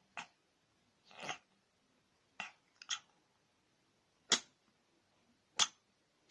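A domestic cat sneezing repeatedly: about six short, sharp sneezes at irregular intervals of roughly a second, the last two the loudest.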